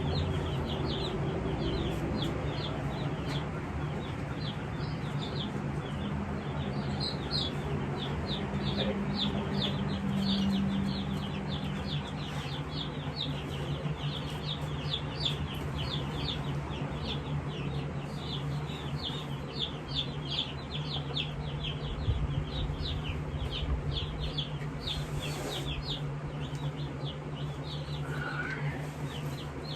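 A brood of day-old jumbo Cornish cross meat chicks peeping constantly: many short, high, falling peeps, several a second, over a steady low hum.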